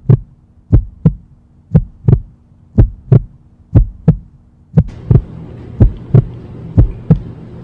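Heartbeat sound effect: paired 'lub-dub' thumps repeating about once a second, with a low steady hum under the first half.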